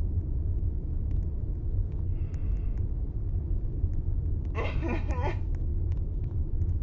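Steady low rumble throughout, with a short burst of a person's voice about five seconds in.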